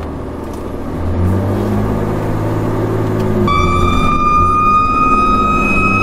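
Fire truck engine running under way, its drone getting louder about a second in as it pulls ahead. A siren comes on abruptly about three and a half seconds in, a high steady wail that climbs slowly in pitch.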